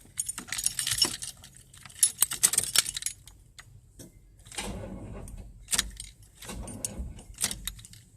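Keys jangling on a key ring, a quick metallic rattle through the first few seconds, followed by two short, duller noises about five and seven seconds in.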